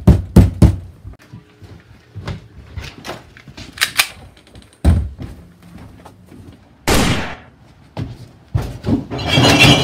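Knuckles rapping on a wooden door, a few quick knocks right at the start, followed by scattered thuds and clatter of the door. A short loud burst of noise comes about seven seconds in, and a longer one near the end.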